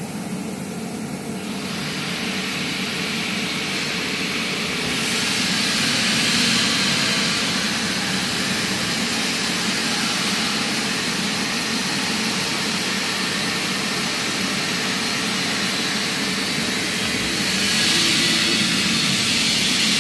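Mikron HSM 700 high-speed machining center running, a loud steady airy hiss and whine that builds about two seconds in, grows brighter around five seconds, and swells again near the end.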